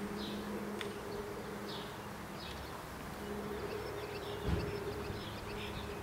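Bumblebee buzzing in flight: a steady low hum that fades and comes back. Faint bird chirps sound behind it, and there is a brief low thump about four and a half seconds in.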